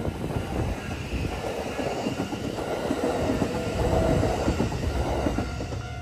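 Kintetsu 8A series electric train passing on the far track: steady wheel rumble with rapid knocks of wheels over the rails, louder around the middle and fading away near the end.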